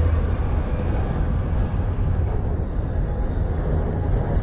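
Autorack freight cars rolling past close by: a steady rumble of steel wheels on the rails.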